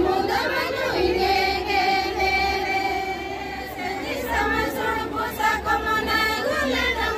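A group of women singing a Santali Baha festival song together, with long held notes that slide from one pitch to the next.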